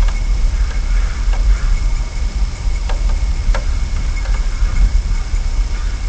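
Steady low rumble with a faint constant high whine over it, and a few light clicks about one and a half, three and three and a half seconds in.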